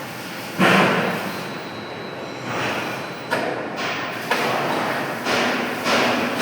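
Workshop noise with a loud thud about half a second in, followed by several more knocks roughly a second apart over a steady background of machine noise.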